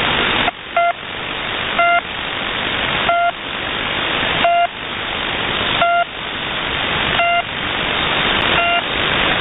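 The Pip shortwave numbers station back on its marker signal after a voice message: seven short beeps, one about every 1.3 seconds, over loud shortwave receiver hiss. The hiss dips at each beep and swells back between them.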